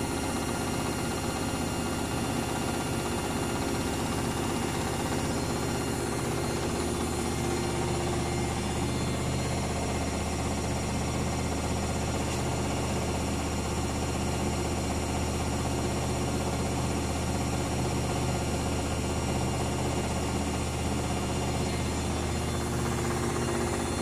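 Luxor WM 1042 front-loading washing machine running a spin cycle with an unbalanced load, a steady hum from the motor and turning drum with vibration.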